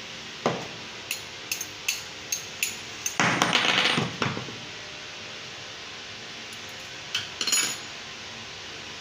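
Metal tools and small parts clinking: a run of sharp clinks, then about a second of rattling and clattering around three seconds in, and a couple more clinks near the end.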